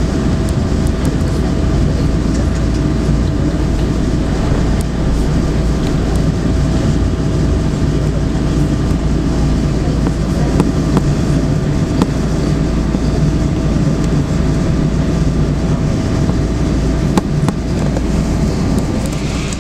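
Cabin noise of a Boeing 777-200ER taxiing after landing: a steady, loud rumble with a thin steady whine through it and occasional clicks.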